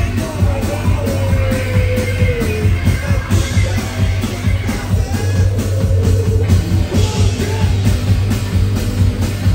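Rock band playing live on electric guitars and drum kit over a heavy bass, with a melody line sliding down in pitch over the first few seconds.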